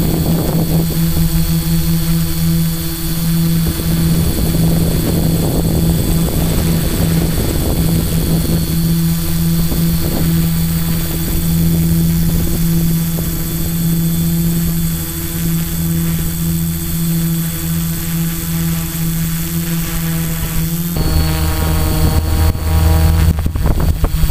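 Quadcopter's electric motors and propellers running, heard through the camera mounted on the craft: a steady droning hum whose tone shifts about 21 seconds in, with choppy noise near the end.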